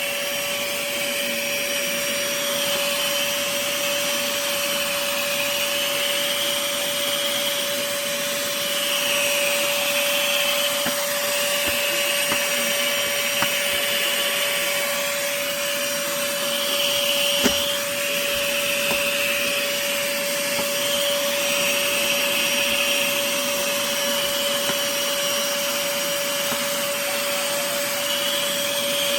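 Tiazhan handheld vacuum cleaner running steadily: a constant motor whine over rushing air, the airflow hiss swelling and fading every few seconds. One brief click a little past halfway.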